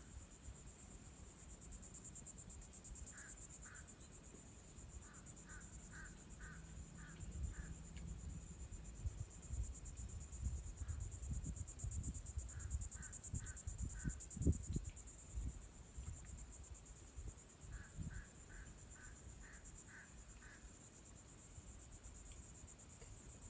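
A steady, finely pulsing high-pitched insect chorus throughout, with a bird calling several times in short runs of three to seven quick notes. Low rumbles, likely wind on the microphone, come and go through the middle. The panting gull itself is not heard.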